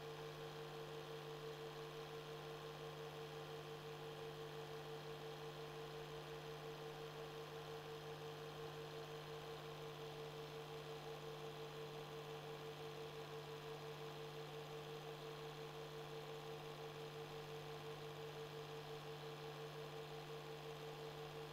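Faint, steady electrical hum: a constant mid-pitched tone over a lower drone, with a slight fast wavering and no change throughout. It is transfer noise on a silent film, which has no soundtrack of its own.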